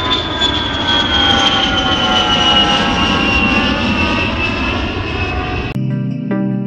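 Propeller motor droning, with a high whine that slowly falls in pitch; it cuts off abruptly near the end and guitar-like music begins.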